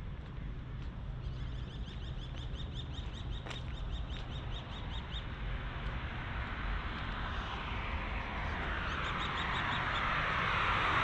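A small bird sings a fast, evenly spaced run of high chirps for about four seconds. Then a road vehicle approaches, its tyre and engine noise growing steadily louder toward the end.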